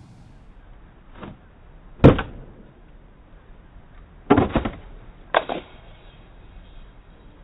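A few sharp knocks: a faint one about a second in, a loud single one about two seconds in, a quick cluster of knocks about four seconds in and one more a second later.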